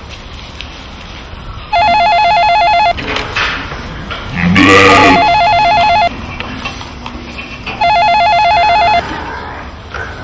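Corded landline telephone ringing with an electronic warbling trill, in three bursts about three seconds apart. A lamb bleats once, loudly, over the start of the second ring.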